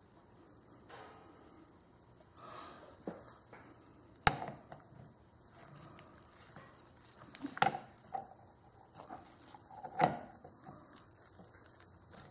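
Greased steel gear parts of a Hardinge Sjogren collet chuck being handled and fitted by hand: soft rubbing and small clicks, with three sharper knocks about four, seven and a half and ten seconds in as the hand-wheel gear is set into place.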